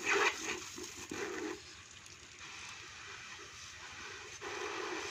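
Water from a garden-hose spray nozzle hitting a motorcycle and splattering onto wet concrete, a steady hiss that is louder in the first second and a half and again near the end.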